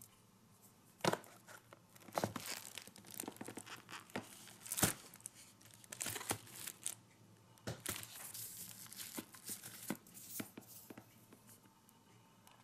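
Cardboard firework packaging and paper-wrapped colour salute bangers rustling, crinkling and clicking as they are handled and one is pulled out of its tightly packed box, in irregular spurts of sharp clicks and rustles.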